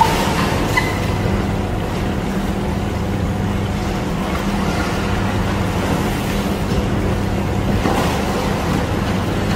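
Steady machine drone: a constant low hum over an even wash of noise, unchanging throughout.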